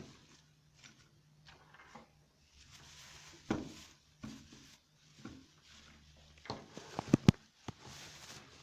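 Packaging and a boxed appliance being handled: rustling, with scattered knocks and clicks. A quick cluster of sharp knocks comes about seven seconds in and is the loudest part.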